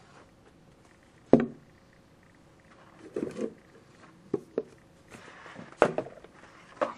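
Objects being handled and set down on a table, among them a cardboard trading-card box: one sharp knock about a second and a half in, then several lighter knocks and a short scrape or rustle.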